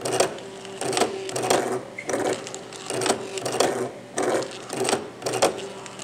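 Stepper motors of a Rubik's Cube solving robot turning the cube's faces in quick successive moves: a short buzz about every two-thirds of a second, about nine in all, with a steady low hum between moves.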